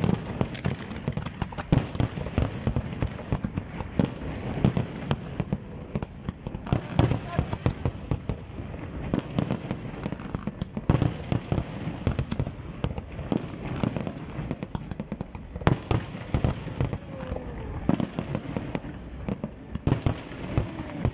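Fireworks display: a dense, rapid string of bangs and crackles from bursting shells and rockets launching in quick succession.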